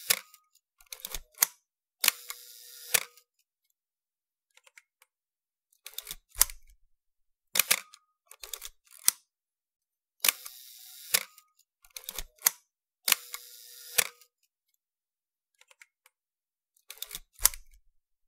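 Camera shutter firing about seven times, each shot a sharp click, a short whirr and a second click, with fainter clicks in between.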